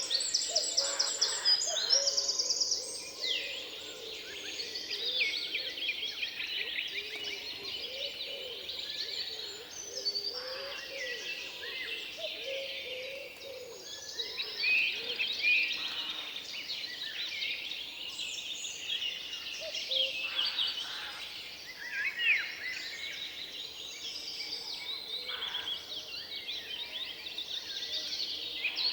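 Many songbirds singing and calling at once, with a fast, evenly repeated trill in the first couple of seconds and fainter, lower calls underneath.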